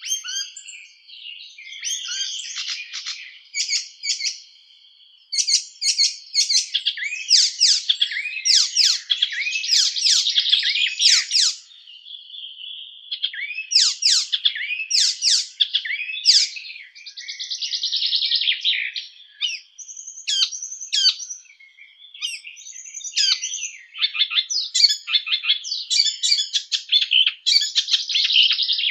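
Small songbird singing a fast, varied, rapid-fire song of chattering trills and sharp chirps, in phrases a few seconds long with brief pauses between them.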